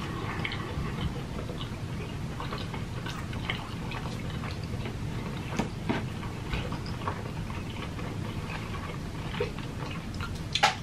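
Close-up mouth sounds of people chewing pizza: small wet clicks and smacks scattered throughout, with a sharper click near the end, over a steady low background hum.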